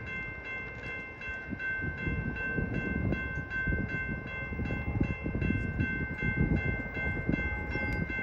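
Diesel freight locomotive approaching, its engine and wheel rumble growing louder about a second and a half in. A steady, high pulsing tone runs behind it, several pulses a second.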